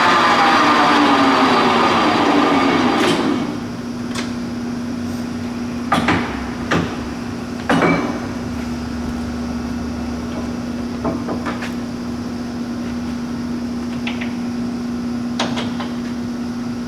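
Leblond Regal engine lathe's geared headstock coasting down from 1080 RPM, its gear whine falling in pitch and dying away over about three seconds. A steady hum follows, broken by a series of sharp metallic clunks and clicks as the machine's levers are shifted.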